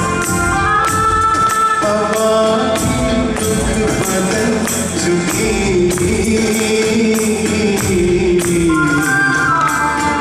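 A man singing a slow melodic song into a microphone, with a live band behind him: a melody instrument and a steady percussion beat.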